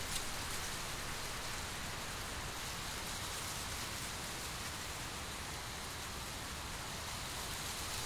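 Wind blowing through a field of dry, dead corn stalks, the papery leaves rustling in a steady hiss, with a low wind rumble underneath.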